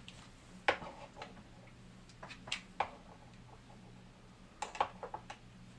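Light plastic clicks and taps of game cartridges and cases being moved about on a shelf: one about a second in, a few around the middle and a quick cluster near the end. A faint low hum runs underneath.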